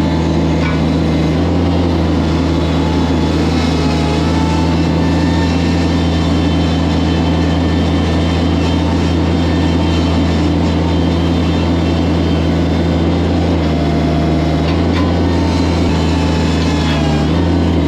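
Bobcat mini track loader's diesel engine running steadily at a loud, constant drone, with small shifts in pitch near the end as the load changes.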